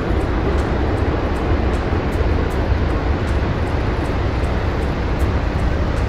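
Glacier ice calving: a steady, deep rumbling roar as a section of the glacier face collapses into the sea.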